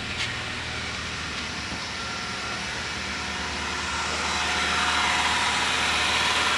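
Ford Zetec Rocam four-cylinder engine idling steadily and smoothly, with no timing-chain rattle or lifter tapping: it has a new timing chain kit and new lifters. A brief click comes near the start, and the engine grows louder about four seconds in.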